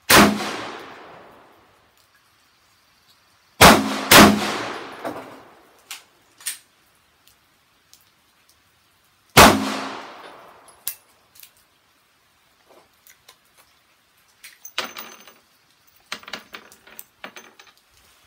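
Four pistol shots from a Smith & Wesson SW1911 in .45 ACP: one at the start, two in quick succession a few seconds in, and one more about halfway, each with a long ringing tail. Softer clicks and clatter follow near the end.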